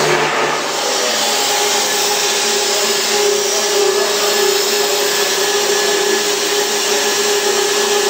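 PVC profile extrusion line running: a steady, airy machine noise with a constant hum, typical of the line's vacuum pumps and blower motors.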